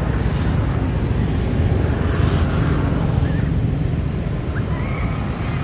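Steady low rumble, with a faint short high chirp near the end.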